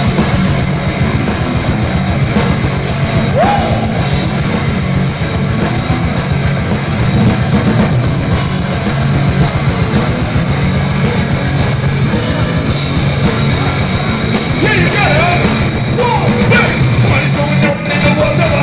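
A rock band playing live: electric guitars, bass guitar and drum kit, loud and steady throughout.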